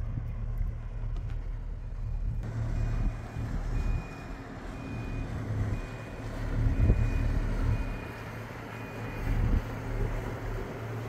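A boat's engine rumbling low and steady under way. A high electronic beep repeats roughly once a second from about two seconds in until near the end.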